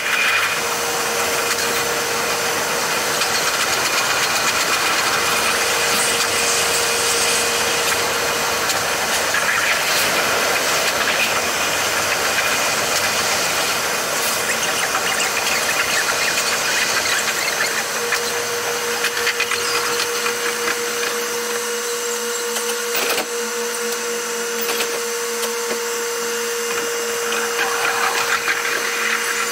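Train running noise from the driver's cab, sped up eightfold into a dense, high whirr like a drill or vacuum cleaner, with a steady hum-like tone through it and one sharp click about three quarters of the way through.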